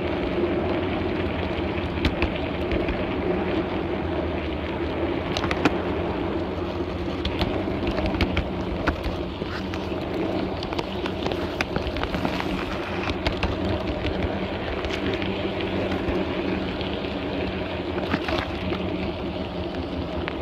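Miniature garden-railway train running along the track: a steady hum from the running gear, with scattered clicks and rattles from the wheels on the rails.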